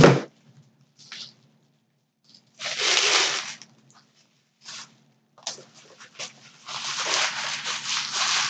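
Packaging handled and opened by hand while unboxing a Funko Pop: a sharp knock at the start, a short rip about three seconds in, a few clicks, then crinkly rustling in the last two seconds.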